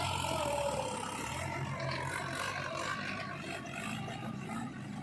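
Heavy diesel engine running steadily, with a pitched sound gliding downward in the first second.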